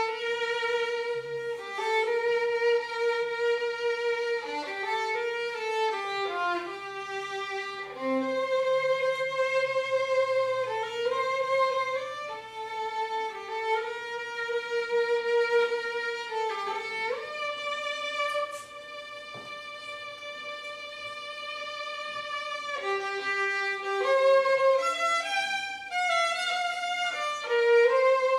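Solo violin playing a slow melody of long bowed notes, with one note held for about five seconds just past the middle, where the playing grows softer.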